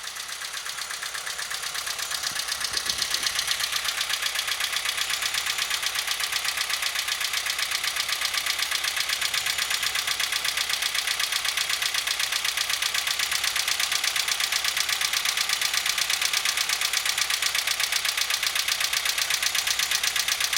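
Car engine running with a fast, even diesel-like clatter, a knock that turned out to come from the rocker arms. It grows a little louder over the first few seconds, then holds steady.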